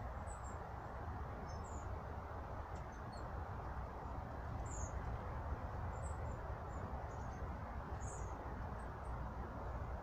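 Small songbirds giving short, thin, very high-pitched calls, about a dozen scattered notes, over a steady low background hiss.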